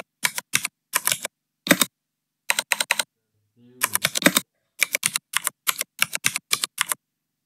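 Typing on a computer keyboard: separate key clicks in short runs, broken by pauses of about half a second, as a line of code is typed in.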